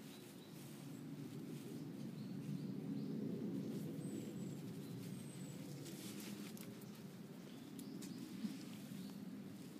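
Quiet outdoor ambience: a steady low rumble, with a few brief, thin bird chirps a few seconds in and some faint light ticks.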